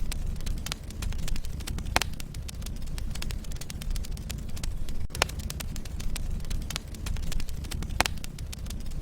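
Wood logs burning in a fireplace: a steady low rumble of the flames with frequent small crackles and a few louder pops, about 2, 5 and 8 seconds in.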